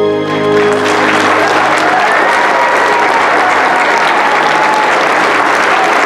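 Audience applauding steadily in a large hall, starting as the last held note of an Italian ballad fades out in the first half second.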